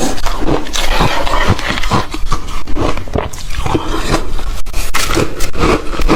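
Ice being bitten and chewed close to the microphone: rapid, irregular crunching and crackling.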